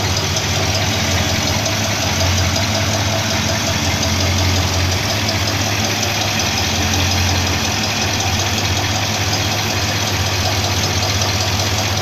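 The engine of a 1957 Chevrolet Bel Air, freshly completed with all its accessories, idling steadily with an even low rumble.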